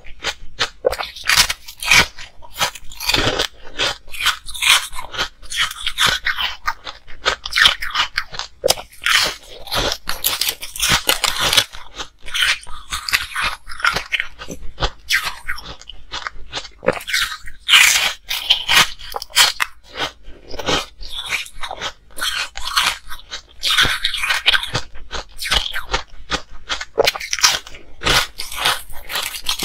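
Close-miked biting and chewing of frozen pink ice discs: dense, irregular crunching and crackling of breaking ice.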